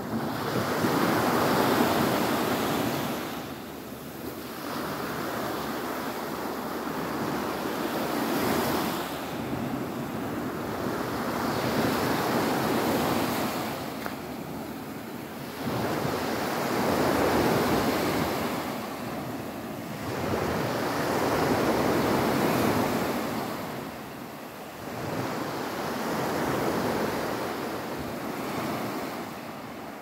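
Small sea waves breaking and washing up a beach. The surf swells and fades about every four to five seconds.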